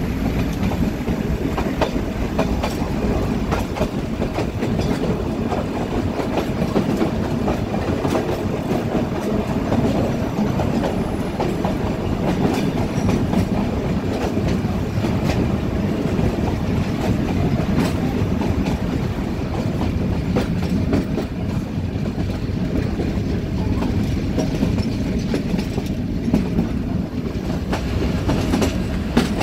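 Metre-gauge Nilgiri Mountain Railway passenger coaches running along the track, wheels clattering steadily over the rail joints, heard from an open carriage window.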